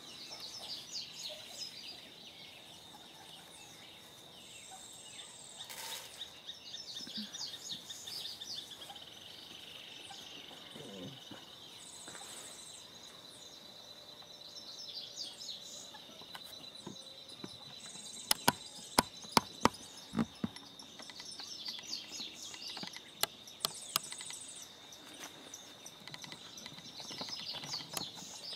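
Dawn chorus of birds chirping and calling, over a steady high insect drone, with a higher buzz that comes and goes every few seconds. A run of sharp clicks about two-thirds through is the loudest sound.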